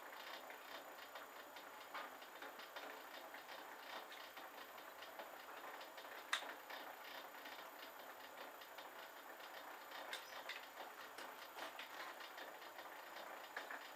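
Clarke CL500M lathe running in reverse with the thread-cutting tool withdrawn, the carriage travelling back along the bed between threading passes, making a steady fast ticking clatter. One sharper click about six seconds in.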